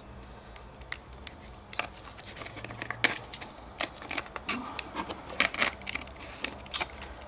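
Irregular small clicks, taps and brief scraping as a circuit board and its wires are handled and shifted inside a plastic project enclosure.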